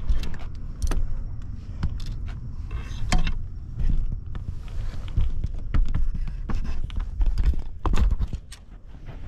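Irregular knocks and clatter of a body-worn camera being jostled as its wearer walks, over a steady low rumble of handling noise.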